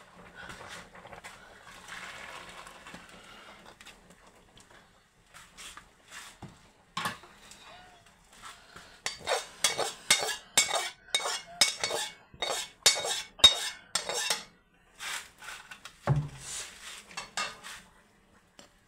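Boiled noodles drained into a perforated steel colander: a soft hiss at first, then about halfway through a quick run of sharp metallic clanks and knocks of steel cookware, with a dull thump near the end.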